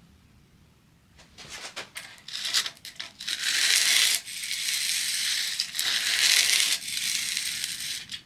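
A wood chisel clamped in a roller honing guide, its bevel scraped across sandpaper to sharpen it. It starts with a few short scratches and clicks, then three long, loud scraping strokes about three seconds in.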